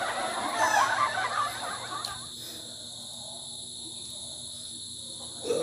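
Steady high trill of crickets. For about the first two seconds a louder, dense rustling crackle lies over it, then stops, leaving only the insects.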